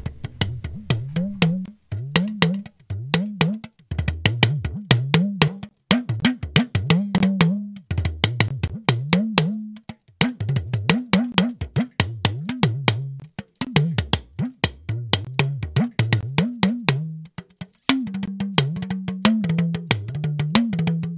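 Recorded talking drum played back: quick stick strikes on the drumhead with the pitch sliding up and down as the drum is squeezed, in phrases broken by short pauses. The recording is running through a Waves DPR-402 compressor plugin.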